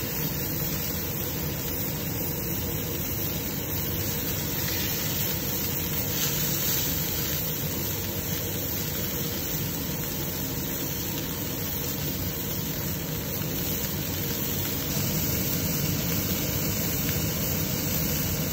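Lamb leg steaks searing in hot oil in a stainless-steel frying pan over a gas flame: a steady sizzle over an even, unbroken drone.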